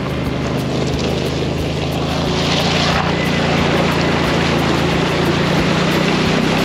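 Side-by-side UTV engine running with a steady drone as its knobby tyre ploughs through a shallow rocky stream, water splashing and spraying off the wheel. The hiss of the splash swells about two to three seconds in.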